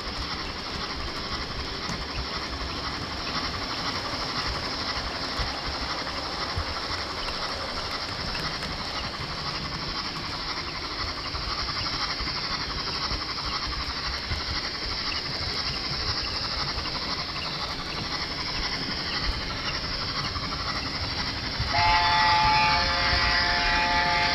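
Model train running along the layout, heard from a camera riding on the train: a steady whirr and rail rumble from the wheels and motor. About 22 seconds in, a louder whistle with several notes at once sounds and keeps going.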